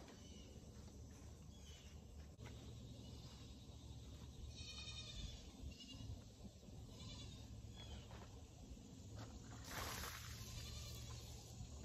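Livestock bleating faintly a few times, the clearest call about halfway through. About ten seconds in, a brief rush of loose soil poured out of black plastic nursery pots onto a wooden table.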